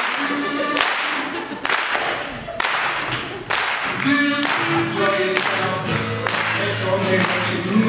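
Live song: men's voices singing over a strummed acoustic guitar, with a sharp beat about once a second. About four seconds in, fuller, steadier guitar chords and more voices come in.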